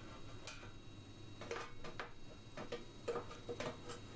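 Light, irregular metal clicks and ticks, about a dozen, from a screwdriver and pliers working against a thin sheet-steel panel as it is levered and bent in by hand.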